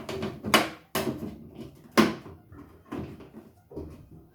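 Handling noise of hard objects being knocked and set down, with two loud sharp knocks about half a second and two seconds in and lighter clatter between them.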